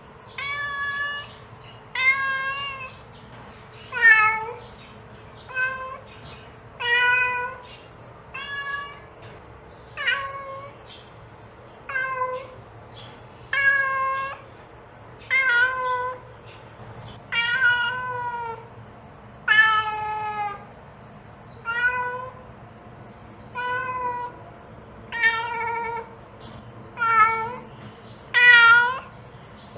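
A mother cat calling her kittens with a long run of repeated meows, about one every one and a half to two seconds, some bending up and down in pitch.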